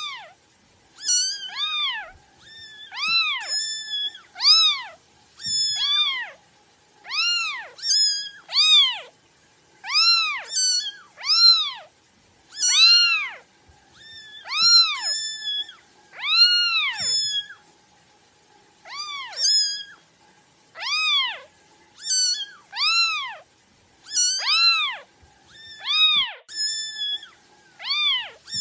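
Kittens mewing over and over: high cries that rise and fall in pitch, roughly one a second, with a second, higher and shorter mew mixed in between them.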